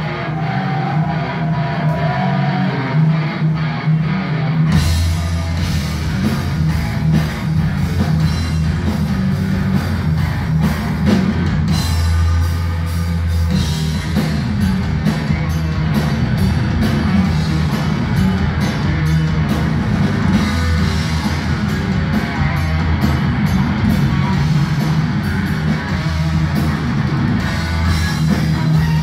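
Live hard rock band playing loud through the PA: electric guitar, bass guitar and drum kit. The heavy low end of bass and kick drum comes in about five seconds in.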